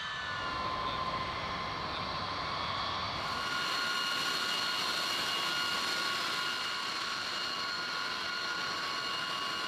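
Steady whine of jet turbines: a hiss with several high, steady tones, turning brighter and a little louder about three seconds in.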